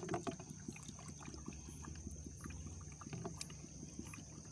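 Water lapping and gurgling faintly in a plastic bucket as a plastic bottle is held under the surface and fills, with small soft ticks throughout.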